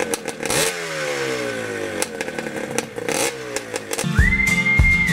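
Motorcycle engine revved, its pitch rising and then falling away twice. Music with a steady beat comes in about four seconds in.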